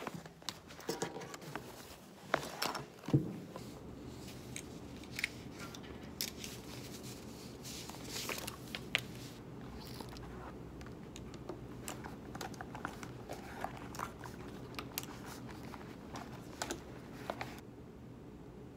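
Canvas tote bag rustling as hands rummage in it, then paper sheets and a kraft envelope shuffled on a desk, with light clicks and taps of stationery being picked up and set down. The loudest handling comes about two to three seconds in.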